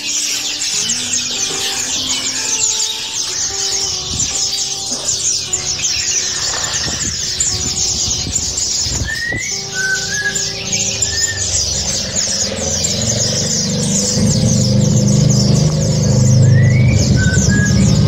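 Many small caged songbirds chirping and twittering at once, a dense high chatter with a short rising call now and then. Background music runs underneath, its low beat growing louder about two-thirds of the way through.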